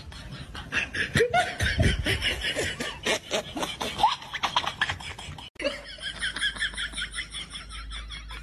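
A person laughing hard in rapid, uneven bursts. About five and a half seconds in the sound cuts off abruptly, and a different recording with quicker, higher snickering laughter follows.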